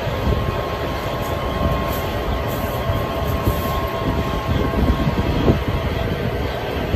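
Steady machine rumble with a faint steady hum, with one brief louder sound about five and a half seconds in.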